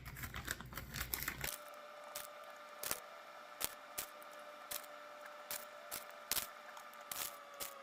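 Scattered light clicks and taps as shredded cheese is dropped by hand into the cups of a metal mini muffin pan. A faint steady hum starts about a second and a half in.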